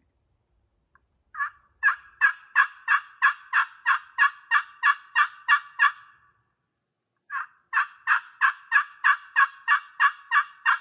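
Romy special friction pot turkey call, worked with a heavier striker, playing two long runs of evenly spaced yelps, about three a second, with a short pause between the runs. The call is built for a hollow, nasal sound.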